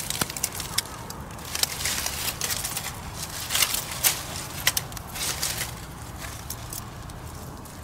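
Dry twigs and dead leaves rustling and crackling irregularly, with a few sharper snaps, as a kitten scrambles in the undergrowth and paws at a gloved hand brushing through the foliage.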